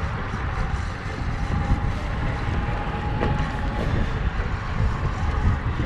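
Wind buffeting the microphone: a gusting low rumble with hiss.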